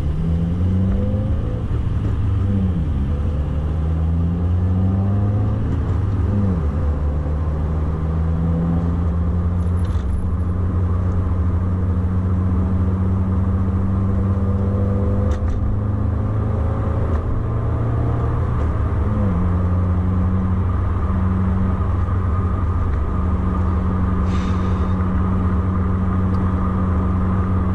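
Subaru WRX's turbocharged flat-four engine pulling through the gears. Its pitch climbs and drops at shifts about three and six seconds in, then holds steady at cruise, with another quick dip and recovery about twenty seconds in. A steady low road rumble runs under it.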